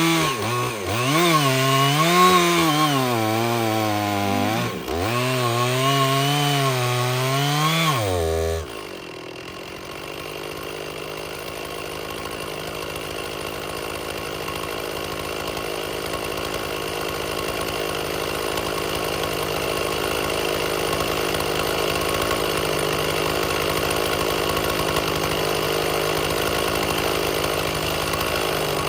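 Stihl chainsaw cutting firewood, its engine pitch dipping and recovering repeatedly as the bar bogs under load. About eight and a half seconds in the loud cutting stops abruptly. A quieter, steadier chainsaw sound carries on and slowly grows louder.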